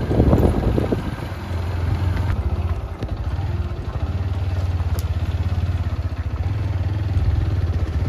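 Motor scooter engine running with a steady low drone, its firing heard as a fine even pulsing. A voice is briefly heard at the start.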